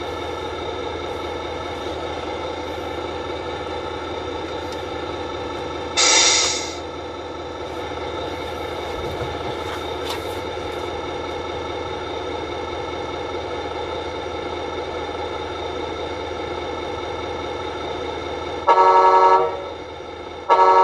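Sound module of a Tamiya Scania 770S 6x4 RC truck playing a steady V8 engine idle through its speaker. There is a short air hiss about six seconds in and two loud horn blasts near the end.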